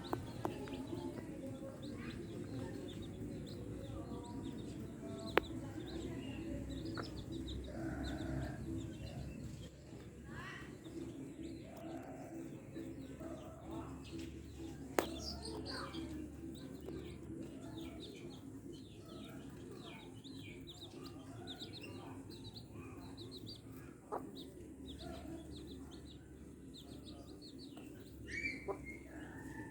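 Chickens clucking, with small birds chirping many short notes and a few sharp clicks, over a steady low hum.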